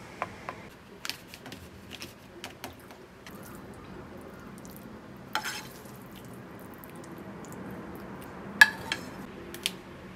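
Dishes and utensils clinking on a table: scattered light taps and clicks, with a short clatter about five seconds in and the loudest knock near the end.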